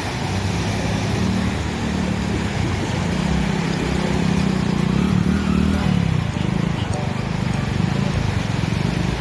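A motor vehicle's engine running close by in street traffic, its low hum swelling around the middle and then easing off.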